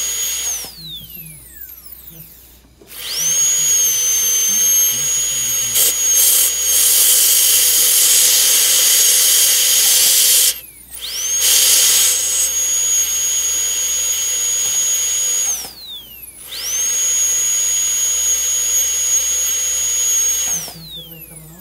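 High-speed dental handpiece whining at a steady high pitch over a hiss of water spray as it cuts tooth. It runs in four spells, stopping about a second in, near the middle, about three quarters through and near the end, each time winding down in a falling whine. This is the intermittent cutting used on sensitive front teeth.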